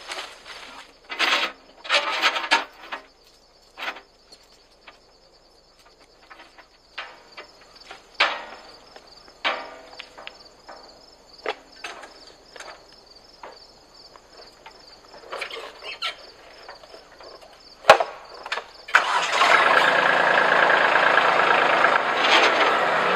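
Shoes scuffing and knocking on the loader arm and hood of a Kubota B2650 compact tractor as it is climbed, in scattered short knocks. About nineteen seconds in, after a sharp click, the tractor's three-cylinder diesel engine starts and runs steadily.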